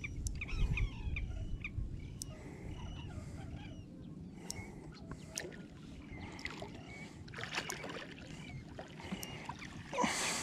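Water and wind noise around a plastic kayak, louder in the first few seconds, with scattered short bird-like chirps and a few light clicks. A louder rush of noise comes near the end.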